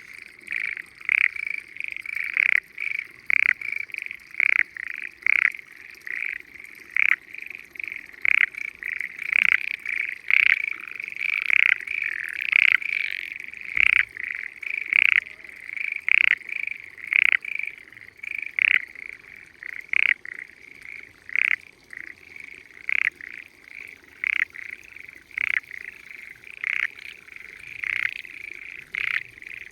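Chorus of frogs calling in flooded rice paddies: short, loud calls repeated over and over, roughly one or two a second, several frogs overlapping.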